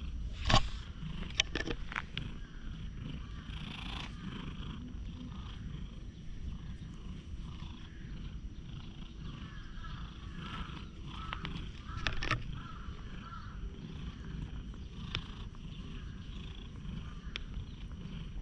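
Tabby stray cat purring low and steadily as it is stroked, with a few sharp knocks, the loudest about half a second in.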